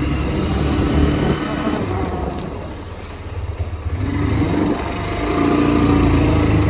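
Hero Xtreme 125R's single-cylinder engine running under way. It eases off about three seconds in, then picks up again.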